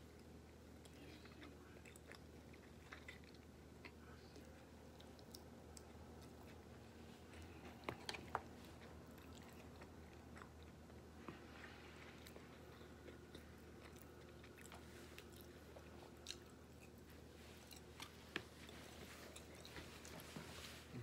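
A person quietly chewing and biting food, with scattered small sharp clicks, the loudest a pair about eight seconds in.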